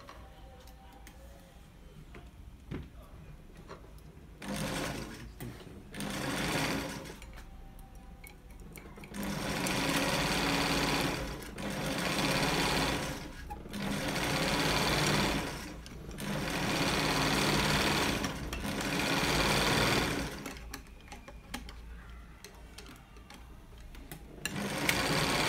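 Zoje industrial lockstitch sewing machine running in about eight short bursts of one to two seconds, with brief pauses between them. These are test runs after its rotary hook timing has been set. The first few seconds hold only a few faint clicks.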